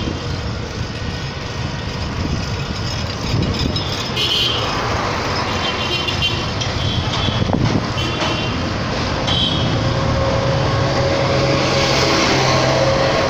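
Busy street traffic heard while riding along: steady road and engine noise, with several short high-pitched toots through the middle. A steady engine tone comes in near the end.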